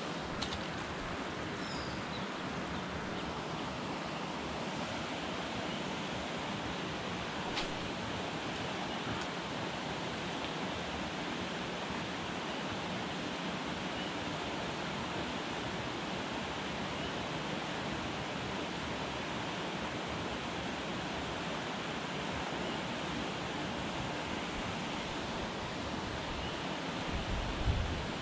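Steady rushing noise of a small river's flowing water, with a single sharp click about a third of the way in and a brief low thump near the end.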